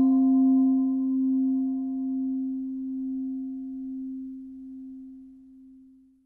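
A struck singing bowl rings and slowly fades, a steady low hum with a few higher overtones, one of them wavering. By the end it has nearly died away.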